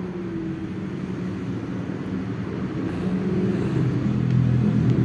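Small dog growling continuously in a low rumble, growing louder about three seconds in: an aggressive warning growl.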